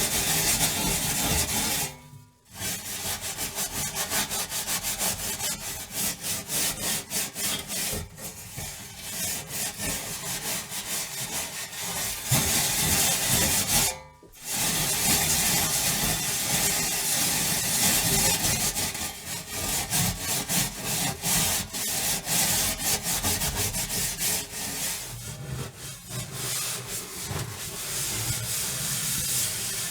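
Scrubbing an oven: a scrubber rubbing hard back and forth over the oven's surface in quick, rough strokes. It stops briefly twice, about two seconds in and about fourteen seconds in.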